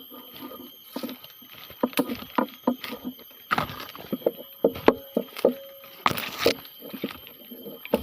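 Wild pigs grunting in a string of short, irregular sounds, mixed with clicks and rustles, over a faint steady insect drone.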